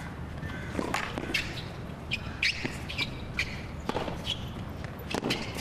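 Tennis rally on a hard court: sharp pops of racquet strings striking the ball and the ball bouncing, coming every half second to a second.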